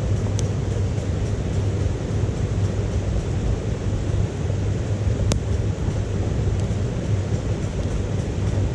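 Wood fire burning in a small titanium wood stove: a few sharp crackles of wood, the clearest about halfway through, over a steady low rumble.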